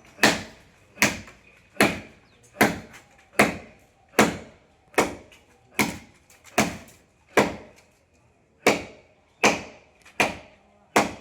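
Steady, evenly paced chopping into a tree with a hand-swung blade, about one sharp blow every 0.8 seconds, some fourteen strikes with a brief pause about two-thirds of the way through.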